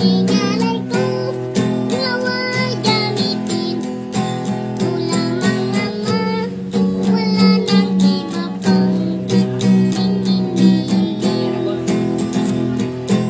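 A young boy strumming an acoustic guitar in a steady rhythm and singing along in a child's voice.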